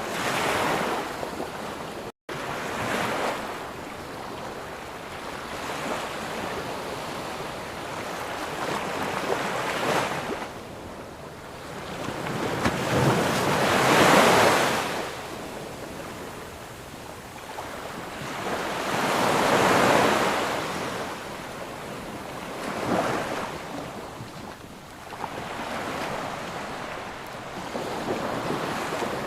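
Waves breaking and washing up on a sandy beach, the surf swelling and fading every few seconds, with the biggest breakers about halfway and two-thirds of the way through. The sound cuts out for an instant about two seconds in.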